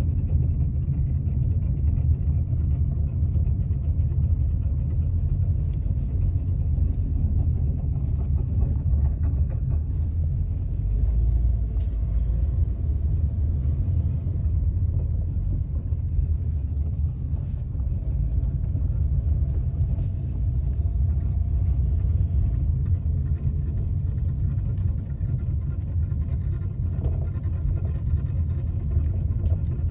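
Car on the move, with a steady low rumble of road and drivetrain noise throughout. It is the kind of noise taken for a possibly failing axle.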